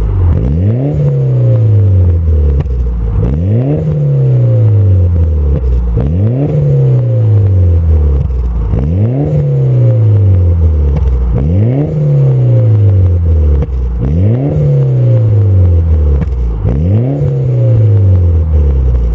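Mitsubishi Lancer Evolution VIII's turbocharged four-cylinder engine breathing through an HKS exhaust, revved again and again. The pitch jumps quickly and then falls slowly back, about every two and a half seconds.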